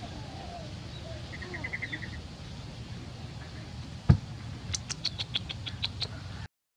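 Birds chirping: a short rapid trill, then a run of about ten quick high chirps, over a steady low hum. A single sharp knock, the loudest sound, comes about four seconds in.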